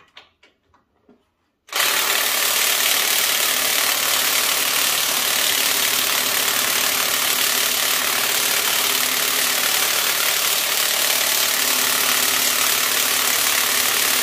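A machine switched on suddenly about two seconds in, running loudly and steadily with a rushing noise and a faint hum.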